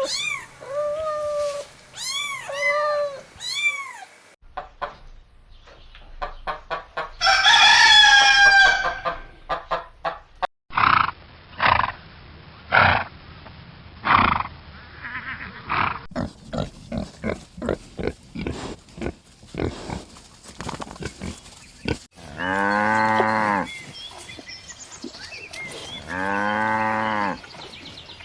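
A string of farm-animal calls cut together from different clips. It opens with several short, high pitched calls, has a rooster crowing about a third of the way in, then a run of short clucks and clicks, and ends with two long, low calls.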